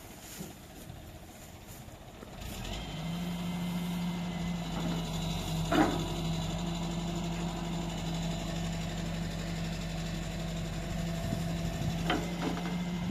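A heavy machine's diesel engine comes up to a steady, even drone about two and a half seconds in and holds there. There is a sharp knock about halfway through and another near the end.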